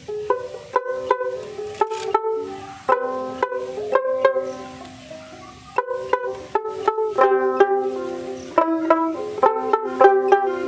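Dotara, a long-necked plucked folk lute, playing a song melody in quick alternating down-up strokes, with a brief gap about halfway through.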